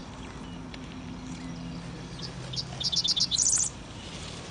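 A songbird singing: a string of quick chirps starting about two seconds in that speeds into a fast, high trill and stops suddenly, over fainter distant bird calls.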